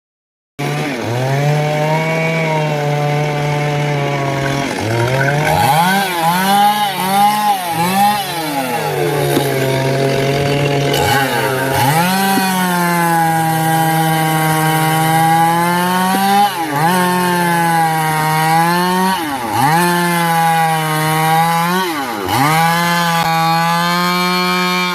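Chainsaw running at high revs and cutting into a palmyra palm trunk, its pitch dipping and recovering every few seconds as the chain bogs in the wood. It starts about half a second in.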